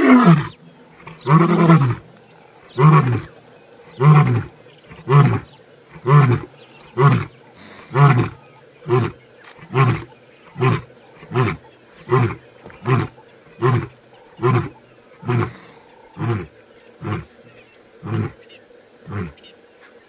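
Male lion roaring: one or two long full roars at the start, then a long series of short grunting calls about one a second that grow quieter and shorter toward the end, the typical close of a lion's roaring bout.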